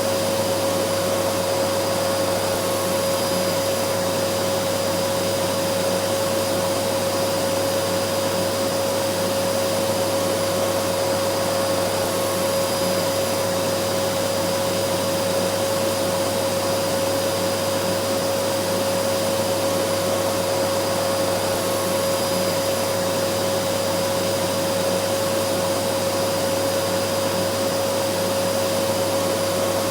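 Vacuum cleaner motor running at a constant speed: a steady rushing hiss with a strong whine held on one pitch.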